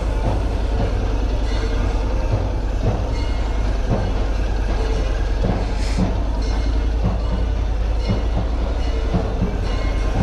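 Motorcycle engine running at low speed in slow street traffic, a steady low rumble.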